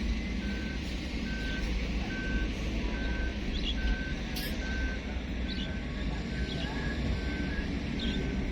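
Large Hitachi 870 excavator with its diesel engine running, a low steady rumble, while its travel alarm beeps steadily at one pitch, about once a second, the warning given while the machine travels.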